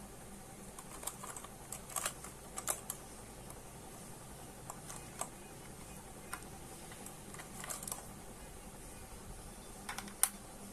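Keys of an RK61 60% mechanical keyboard being pressed: scattered, irregular clicks with pauses between them, the sharpest click near the end.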